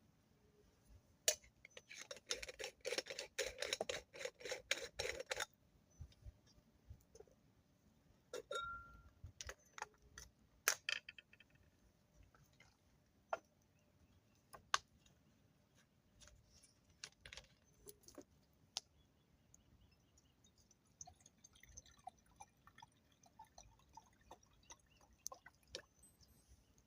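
Scattered clicks and clinks of small hard objects being handled. About two seconds in comes a dense rattling that lasts about three seconds.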